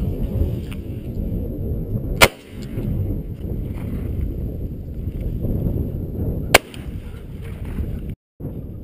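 Two shots from a 12-gauge Browning B325 over-and-under shotgun, about four seconds apart.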